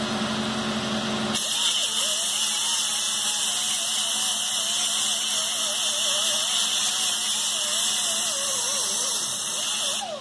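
MIG welding with a Miller Millermatic 211 on a Jeep CJ7's steel rear panel. A steady hum for about the first second and a half, then the arc runs as a loud, steady hiss with a wavering tone until just before the end, as a crack in the panel is welded up.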